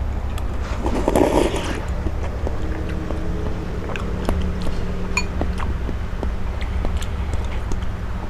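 Someone eating curry noodles close to the microphone: a short slurp about a second in, then scattered light clicks and clinks of utensils, over a steady low hum.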